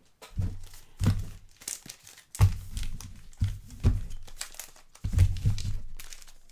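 Plastic card-box or pack wrapping crinkling and tearing as it is opened by hand, with a few dull knocks of handling in between.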